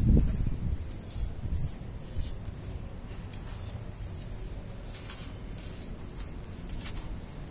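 Damp sand crumbled between fingers and sifted back into a tub of sand: a dull thump at the very start, then a faint, gritty hiss of trickling grains with soft crunches.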